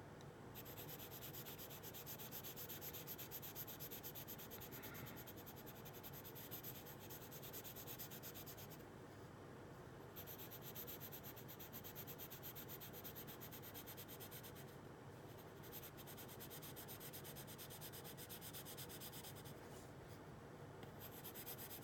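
A coloured pencil lightly shading on drawing paper, a faint scratchy rubbing in short repeated strokes, laying down a pale base coat.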